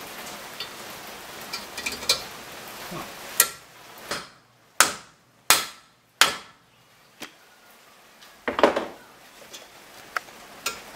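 Hammer blows driving a new wheel-bearing race into the bore of a Ford Festiva front hub, struck through the old race laid upside down as a driver. There are four sharp strikes in the middle, then a few lighter knocks.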